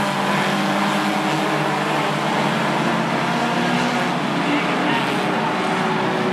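A field of compact four-cylinder stock cars running together around the oval in a steady engine drone.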